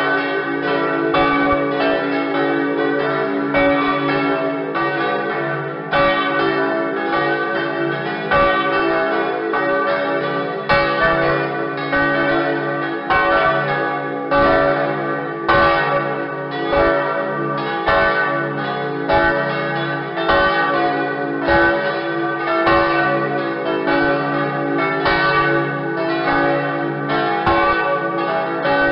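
Several church bells ringing together in a continuous peal, strikes coming a few times a second and overlapping over a sustained hum of the bells' ring.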